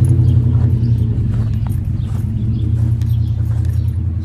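Loud, steady low rumble, a little stronger in the first second or so.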